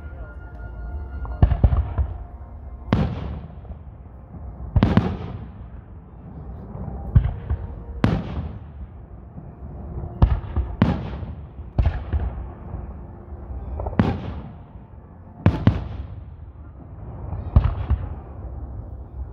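Aerial fireworks shells bursting overhead: about a dozen sharp bangs, one to two seconds apart, each trailing off in an echoing rumble.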